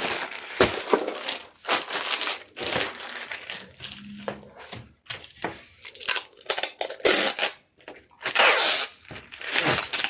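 Packing materials being handled: plastic wrap and packaging crinkling in irregular bursts, with a longer tearing sound about eight seconds in, like packing tape pulled from the roll.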